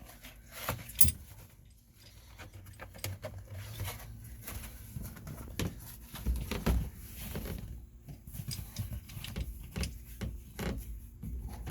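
Seatbelt webbing and plastic C-pillar trim cover being handled and fed together: scattered clicks, light knocks and rustling, with a sharp click about a second in and a few dull thumps around six to seven seconds in.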